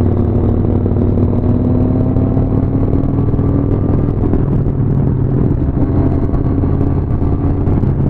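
Motorcycle engine running steadily at cruising speed, heard from the saddle of the bike, its pitch rising slightly over the first few seconds and then holding.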